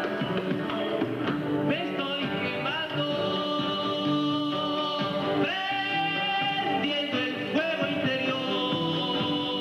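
Live acoustic band: a man singing, holding long notes that slide between pitches, over strummed acoustic guitar and hand drums.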